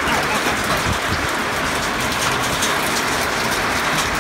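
Heavy storm rain pouring down in a steady, loud hiss, with a dense patter of drops striking hard surfaces close by.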